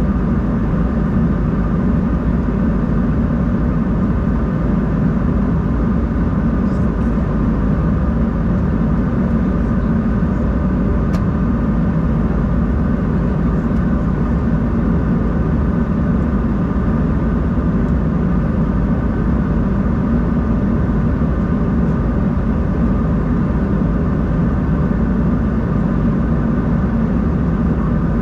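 Steady cabin noise inside an Embraer 190-E2 airliner in flight: the drone of its Pratt & Whitney PW1900G geared turbofans and the rush of air, with a faint steady hum of tones above it. The noise holds even throughout.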